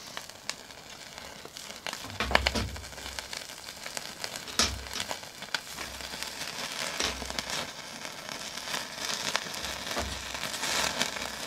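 Kitchen knife trimming the yellow fat and skin from a raw duck on a cutting board, with several soft knocks of the blade and meat on the board and sharp clicks, over a steady crackle.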